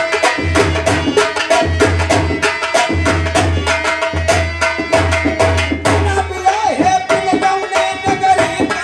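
Folk music played without voice: fast, dense hand-drum beats with a held melody line over them. Deep bass drum strokes run under it until about six seconds in.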